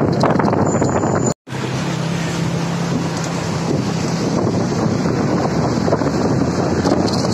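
Wind rushing over the microphone of a moving vehicle, with road noise and a low, steady engine hum. The sound cuts out for a moment about a second and a half in.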